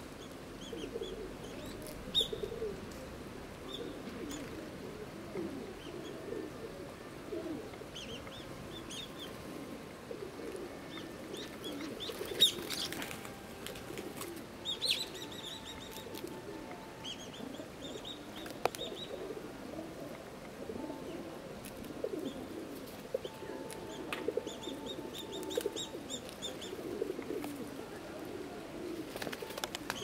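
Feral pigeons cooing steadily in a low, wavering chorus, with scattered runs of short, high chirps from small birds and a few sharp claps, the loudest about midway.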